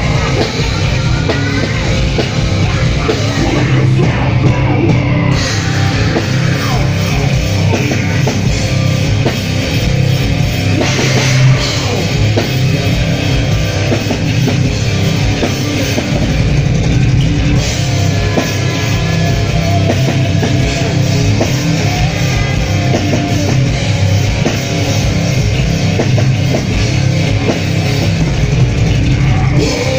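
Heavy metal band playing live and loud: distorted guitar and drums through the PA, without a break.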